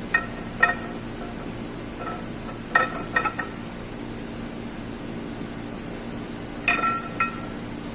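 Metal tools and engine parts clinking, a few short ringing clinks at a time with pauses between, over a steady background hum.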